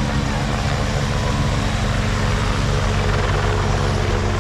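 Helicopter hovering overhead, a loud, steady drone of rotor and engine that holds level throughout.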